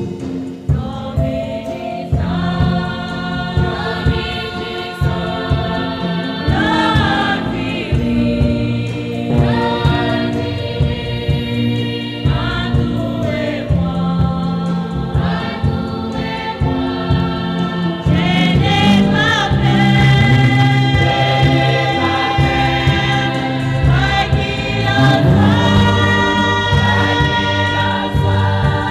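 Church choir singing a gospel worship song with long held notes, over a steady rhythmic beat of accompaniment.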